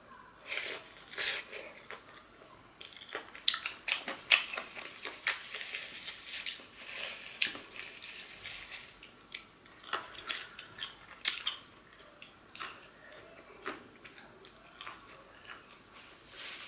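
Close-miked eating of gravy-dipped KFC fried chicken: biting into the coated chicken and chewing it with the mouth open, a stream of irregular sharp crackles and wet mouth clicks.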